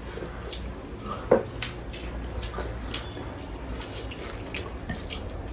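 Scattered small wet clicks and smacks of people eating chicken: chewing, lip smacks and meat being pulled apart, with one sharper click about a second in.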